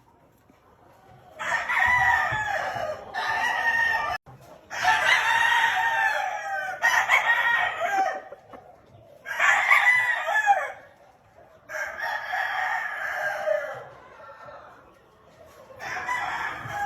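Game roosters crowing, about seven crows one after another with short pauses between them.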